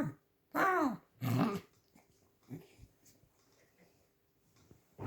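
Pet red fox squeaking: three short, squeaky whining calls in quick succession in the first second and a half, each rising then falling in pitch, and a fainter one a moment later.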